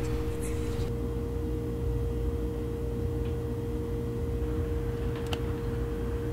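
A steady, unbroken single-pitch drone tone over a low rumble, a sustained horror sound-design drone. A faint click comes about five seconds in.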